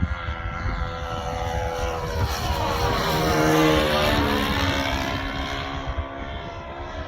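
Saito 125 four-stroke glow engine of an RC Spacewalker model plane on a fast low pass. The engine note swells to its loudest about halfway through, then drops in pitch and fades as the plane goes by.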